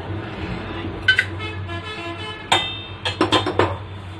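A metal spoon knocking against a bowl and a kadai as dry spice powder is tipped into the pan: about five sharp clinks, several of which ring on briefly, most of them bunched near the end.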